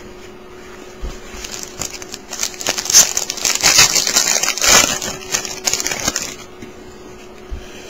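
Trading-card pack wrapper being torn open and crumpled by hand. The crinkling and crackling start about a second in, come in irregular bursts that are loudest around the middle, and die away near the end.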